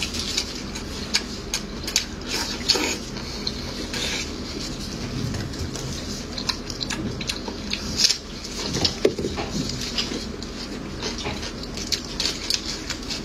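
Chewing a mouthful of fatty cured pork wrapped in lettuce: wet, smacking mouth sounds with many short sharp clicks, the loudest about eight seconds in.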